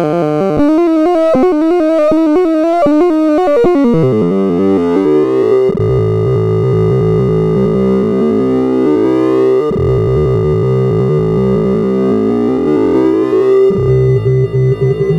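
Sorting-algorithm sonification: dense synthesized tones, each pitch standing for a value being compared or swapped, flickering rapidly up and down. The texture changes abruptly several times, with rising sweeps of pitch in the later part.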